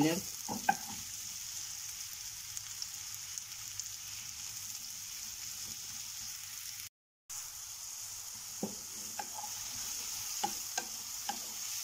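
Sliced mushrooms sizzling in butter and a little oil in a hot frying pan on high heat, stirred with a wooden spoon that knocks lightly against the pan a few times in the second half. The sizzle cuts out for a moment about seven seconds in.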